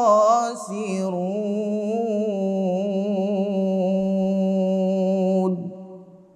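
Male voice reciting the Quran in melodic tarannum style, drawing out the verse's last word, 'al-khasirun', into one long held note that wavers at first and then holds steady. It stops about five and a half seconds in and fades out.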